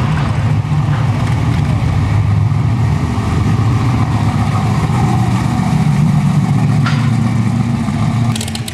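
1968 Chevrolet Chevelle drag car's engine running at low revs as the car creeps along, a steady deep exhaust note with no hard revving.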